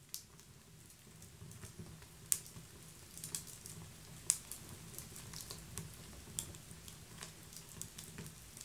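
Bio-ethanol fireplace burning: a soft, low flame rumble with sharp, irregular clicks and crackles, a few of them louder.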